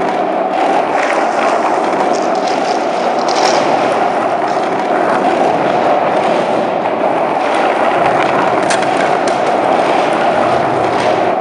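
Skateboard wheels rolling steadily over a rough tunnel floor, a continuous grinding rumble, with a few sharp clicks about three and a half seconds in and twice more near the end.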